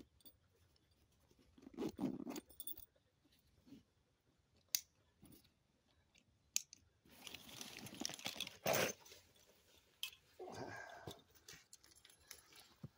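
Close rustling and crunching of outdoor gear being handled, with a few sharp clicks, in irregular bursts; the longest run of rustling comes just past the middle.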